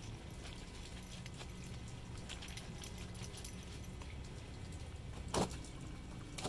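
Clothes being scrubbed and wrung by hand in a plastic tub of soapy water, with soft wet rubbing and scattered light clicks over a steady low rumble. One sharp knock about five seconds in is the loudest sound.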